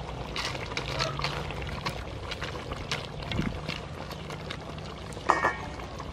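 Wooden spatula stirring a thick, chunky chicken curry in an aluminium pot: wet sloshing and scraping, with a sharp knock that rings briefly about five seconds in.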